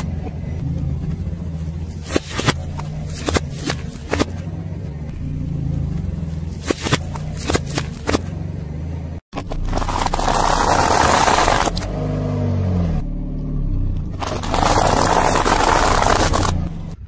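A car engine runs at low speed while its tyre rolls over and crushes objects, with many sharp cracks and crunches. After an abrupt cut come two long stretches of loud rushing noise, with the engine note rising and falling between them.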